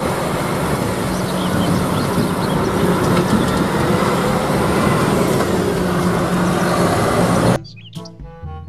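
Concrete mixer truck's diesel engine running as the truck drives along a street, a steady low hum under even road noise. It cuts off suddenly about seven and a half seconds in.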